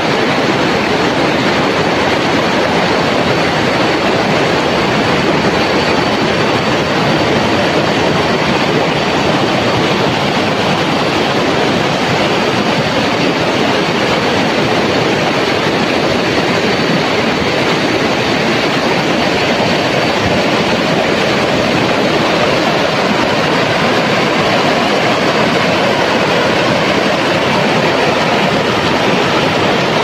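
Shallow river rushing over a rocky bed in rapids: a steady, even rush of water.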